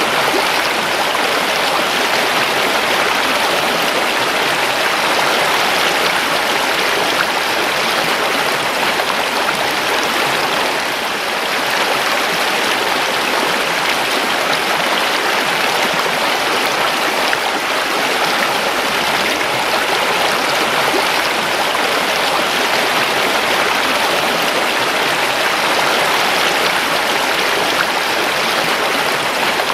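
A creek running steadily, water rushing and splashing over stones.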